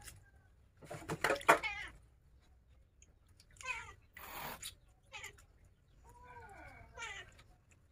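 Domestic cat meowing repeatedly, about five calls. The loudest comes about a second in, and the last ones are long and slide down in pitch.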